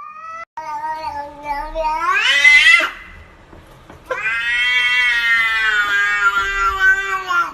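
Domestic cat giving two long, drawn-out meows. The first rises in pitch and breaks off about three seconds in. The second starts about a second later and is held for over three seconds, sinking slightly lower toward the end.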